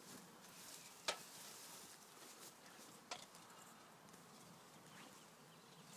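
Near silence: faint outdoor background with two brief clicks, one about a second in and another about three seconds in.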